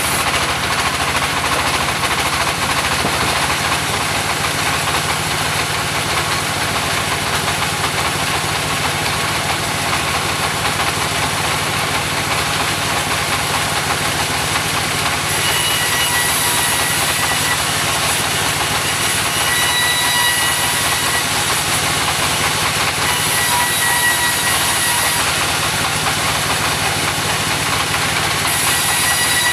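Engine-driven mobile sawmill running steadily while sawing a mahogany log. A faint high whine comes and goes from about halfway through.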